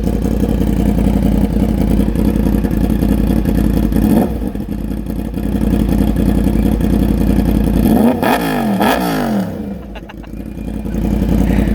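Yamaha MT-10's crossplane inline-four idling through a loud aftermarket exhaust, with a short change in note about four seconds in. About eight seconds in it is revved up and down a few times quickly, then settles back to idle.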